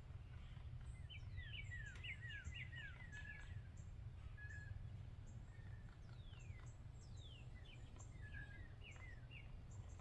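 Birds chirping: a quick run of falling chirps in the first few seconds and more calls in the second half, with short high peeps repeating throughout, over a steady low rumble.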